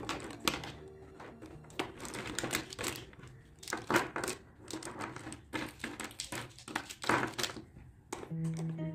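Plastic felt-tip markers clicking and clattering against each other and the cardboard as they are picked up and dropped into the compartments of a cardboard desk organizer, many small irregular knocks. Background music comes back near the end.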